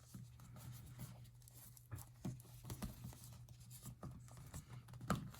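Faint, irregular small clicks and rubbing as the plastic clips of a replacement ear pad are pressed and snapped into the rim of a Sony WH-1000XM3 headphone ear cup.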